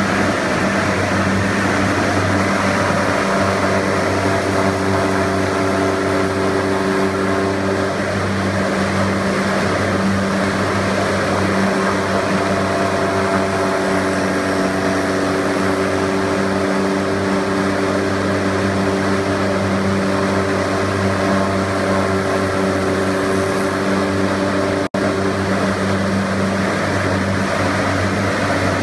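Mattison rotary knife lathe running, its spinning cutterhead cutting a square timber blank into a tapered leg: a loud, steady machine hum with several held tones under a constant cutting noise. It drops out for an instant near the end.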